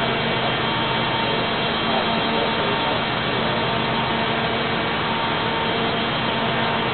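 Automatic rock-drilling rig running with a loud, steady mechanical noise and a constant hum through it.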